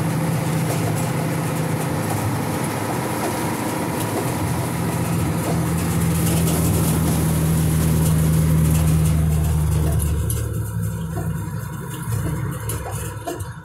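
Farm tractor engine running steadily, heard from inside the cab as a low drone with a noisy wash over it. About ten seconds in it grows quieter, with a few light rattles near the end.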